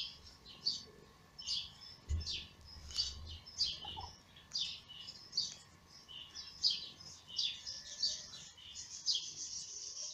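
Small birds chirping: short, high-pitched, downward-sliding calls repeating about twice a second.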